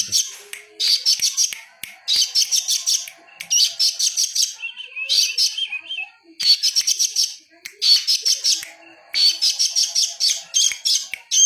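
A songbird singing in quick repeated bursts of rapid, high chattering notes, about ten phrases each under a second long with short pauses between. Part way through there is a lower, softer trill.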